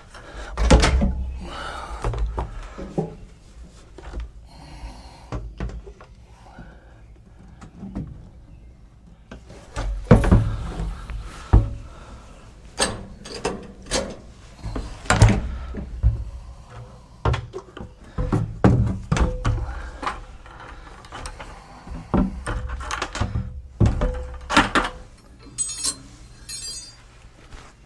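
Irregular knocks and thunks, a dozen or so with low thuds, as fluid jugs and a funnel are handled while topping up a backhoe's transmission fluid, with a short quick rattle near the end.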